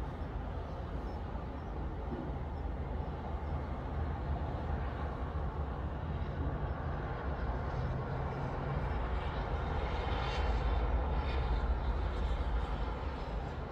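Steady low outdoor rumble of distant vehicles, swelling a little about ten seconds in as some higher hiss comes up.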